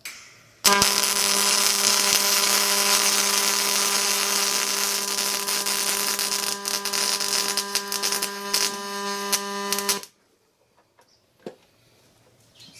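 MIG welding arc from a Miller Multimatic 255 welder: a continuous crackling hiss with a steady hum under it, which starts suddenly under a second in and cuts off abruptly about nine seconds later.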